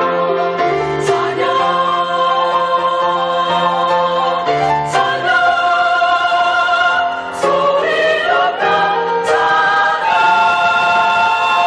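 Choir singing a hymn in held chords that change every two or three seconds, settling on one long sustained chord near the end.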